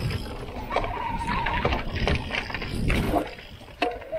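Santa Cruz Heckler electric mountain bike ridden over rocky trail: wind and tyre rumble on the microphone with rattling knocks from the bike over rocks, and a brief steady whine about a second in. The rumble drops away for a moment near the end.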